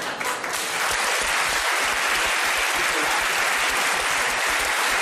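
Studio audience applauding, swelling up within the first second and then holding steady.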